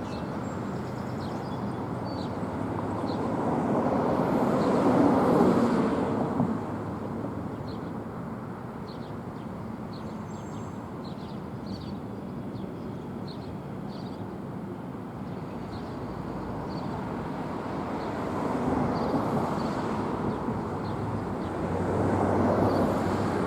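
Passing road traffic: a vehicle swells and fades about five seconds in, and another near the end, over a steady low outdoor hum.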